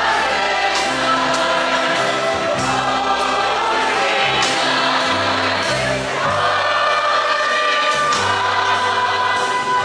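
A choir singing with instrumental backing over a steady beat and a sustained bass line.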